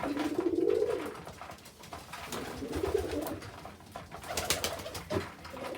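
Domestic tumbler pigeons cooing in a small loft: two long, low, warbling coos, with scattered clicks and a short burst of rustling about four and a half seconds in.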